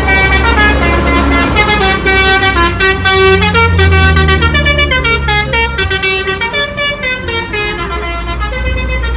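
A bus's Basuri telolet horn playing a rapid melody of many stepped notes, over the low rumble of the bus engine.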